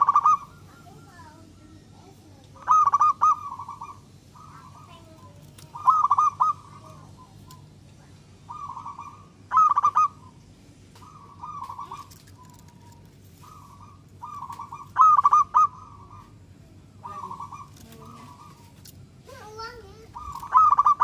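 Zebra dove (perkutut) singing: short, rapid trilled cooing phrases repeated about every three seconds, the louder phrases alternating with softer ones in between.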